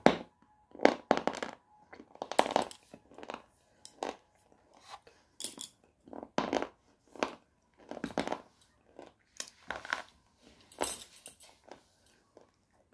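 Crunching and chewing of a hard, powdery white clay bar, right up against a clip-on microphone: uneven crackly crunches come every half-second to second, the loudest at the very start.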